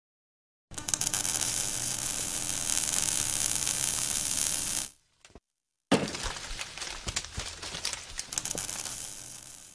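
Logo-intro sound effects: a steady crackling, fizzing fire-and-sparks noise for about four seconds. About a second after it stops, a sudden hit is followed by scattered glassy clinks and crackles that fade out.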